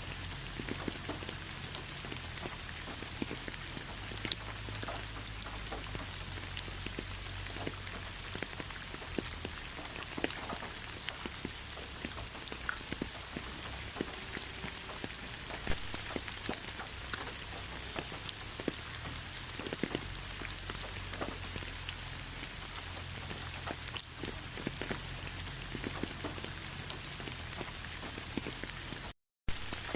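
Steady rain falling, with many separate drops striking close by. The sound cuts out for a split second near the end.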